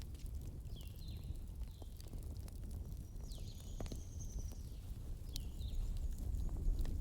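Campfire crackling with scattered sharp pops over a low steady rumble, while a bird gives short high calls several times, with a longer call about halfway through.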